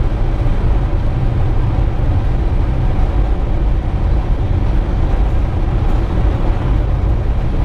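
Steady road and engine noise heard inside a moving car's cabin: a loud, even low rumble of tyres on the road and the engine while cruising on a highway.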